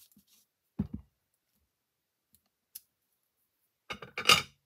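Tabletop paper-crafting sounds: two soft knocks about a second in as the clear acrylic stamp block is put aside. Near the end comes a louder crisp rustle and clicks as the paper envelope is picked up and handled.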